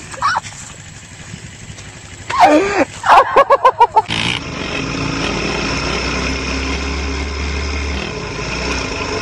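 A loud human vocal outburst, ending in a quick run of short cries, then after a cut about four seconds in, a sport quad bike's engine running steadily.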